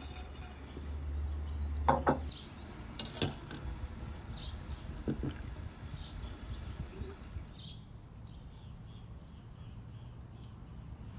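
Small birds chirping repeatedly, with a faster run of high chirps starting about eight seconds in. A few light clinks of teapot and strainer come in the first half.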